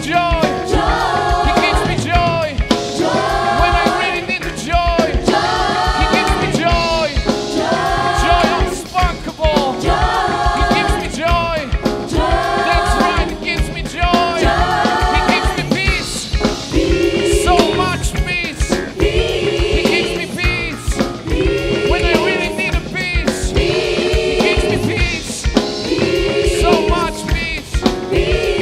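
Gospel choir singing with band accompaniment over a steady beat; about halfway through, the sung phrases drop to a lower register.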